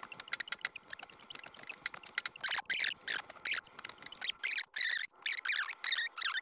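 Raw pork squeaking and squelching in quick, irregular bursts as hands pull and tear it apart on a wooden chopping block, with a cleaver blade scraping against the board.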